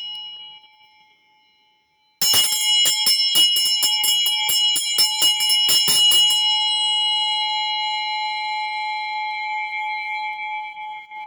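Hand bell with a clapper. A stroke dies away first; then, about two seconds in, the bell is shaken rapidly for about four seconds at roughly five strikes a second. It is then left ringing on one clear note that slowly fades.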